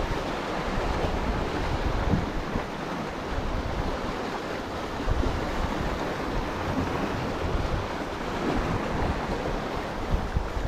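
Small sea waves washing and breaking against the rocks of a breakwater, with wind buffeting the microphone in gusts.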